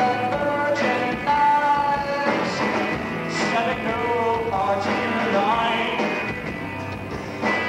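Rock band playing live: electric bass and drums under a singing voice with long held notes.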